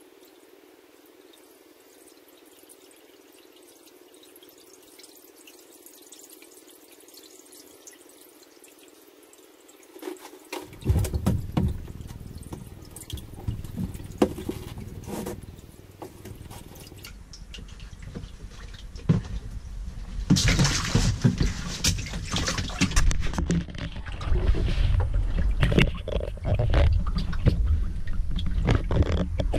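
Faint hiss for about ten seconds, then knocks and a low rumble, and from about twenty seconds in water sloshing and splashing on the flooded fibreglass floor of a jet boat's cabin, water that has leaked into the hull.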